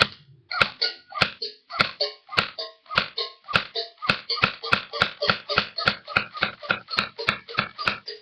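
Elite Force M4A1 airsoft gun giving a steady run of sharp clicks, about three a second and quickening slightly. Each click carries a brief metallic ring.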